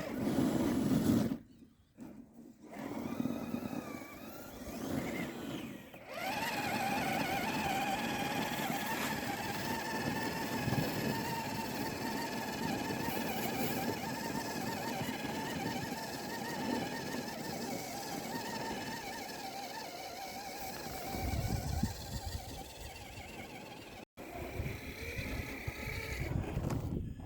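Small electric motor and gear drive of a radio-controlled crawler truck whining steadily, its pitch wavering slightly with the load.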